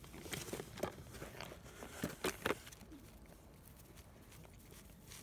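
Labrador puppies eating soaked kibble from plastic tubs in a cardboard feeder: small eating noises and clicks, with a few sharper knocks about two seconds in. The second half is fainter.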